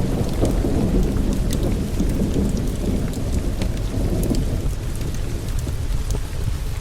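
Thunderstorm: steady rain with a low rolling rumble of thunder that fades away about two-thirds of the way through, over scattered sharp ticks.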